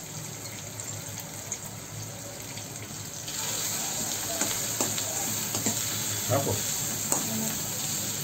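Chopped green onions frying in a steel kadai: a steady sizzle that grows louder about three seconds in as the mix is stirred, with light scrapes of the spoon against the pan.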